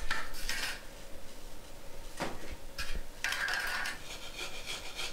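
A wooden float rubbed back and forth over damp sand-cement deck mud, flattening the mortar bed. It makes a regular rasping scrape of about three strokes a second that starts about four seconds in, after a few separate scrapes as the mud is worked by hand.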